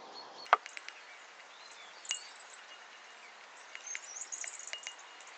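Metal spoon stirring a glue-and-lotion mix in a ceramic bowl: a run of light clicks and scrapes, with a sharper clink about half a second in and a few brief ringing clinks as the spoon taps the bowl.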